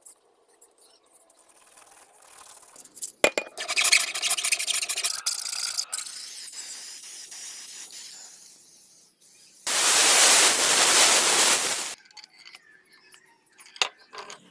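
Scraping and rubbing on the hatchet's metal handle, with a few sharp clicks, as filler is worked over it; then an aerosol spray can hissing steadily for about two seconds as paint goes onto the hatchet head, cutting off sharply.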